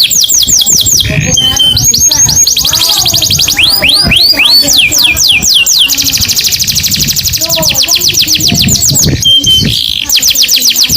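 Canary singing continuously: phrases of repeated downward-sweeping notes, several a second, alternating with fast, even trills.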